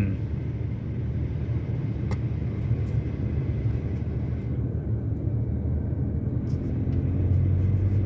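Steady road and engine rumble heard inside a moving car's cabin, a low drone that grows a little louder near the end.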